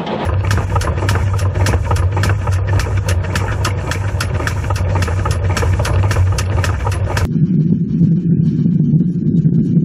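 Running noise of a steam locomotive on the move: a steady low drone with sharp, even clicks about four a second, switching abruptly about seven seconds in to a duller, steadier drone without the clicks.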